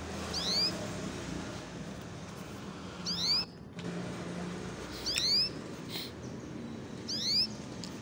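Canary giving short chirping calls, four times about two seconds apart, each a quick run of two or three high notes, over a steady low hum of background traffic.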